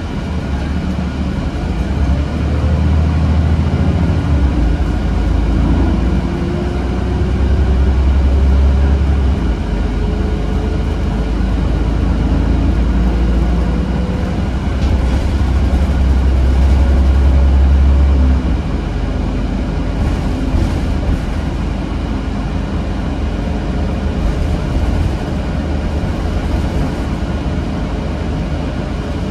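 City bus running at speed, heard from inside the passenger cabin: a heavy low rumble of engine and road, with a faint whine slowly rising in pitch as the bus gathers speed. The rumble drops off sharply about two-thirds of the way through.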